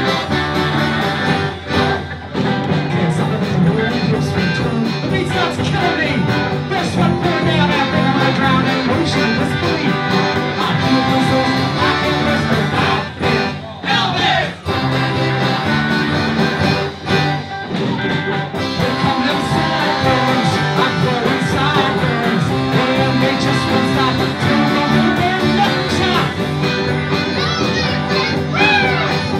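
Live polka band playing a tune, with accordion, saxophone and guitar.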